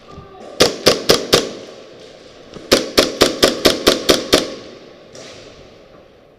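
Airsoft gun firing rapid shots: a run of four sharp cracks, then after a pause a run of eight at about five a second.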